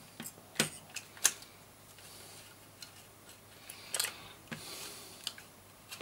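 Sharp plastic clicks and knocks from the parts of an opened joystick being handled and worked, the two loudest within the first second and a half, then a few fainter clicks and a brief rustle.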